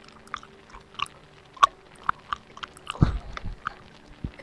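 Close-microphone ASMR mouth sounds: wet lip smacks and tongue clicks, short and irregular. A heavier low thud comes about three seconds in.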